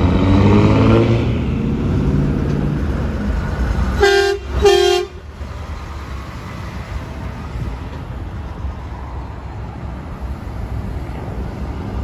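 A semi truck's engine accelerating, its pitch rising, then two short blasts of a semi truck's air horn about four seconds in, followed by the steady rumble of passing trucks.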